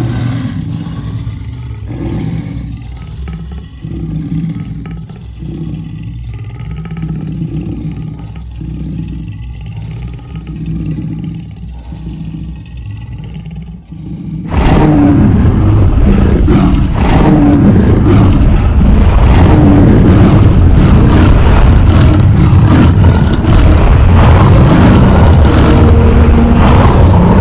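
Monster roar sound effect: a low, pulsing growl for the first half, then about halfway it cuts abruptly to a much louder, dense, continuous roar.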